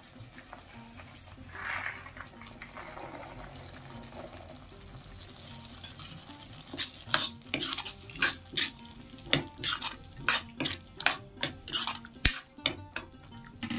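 Onion-tomato masala sizzling gently in a metal kadai. From about halfway, a metal spatula stirs green peas into the masala, scraping and knocking against the pan in quick strokes, about two a second.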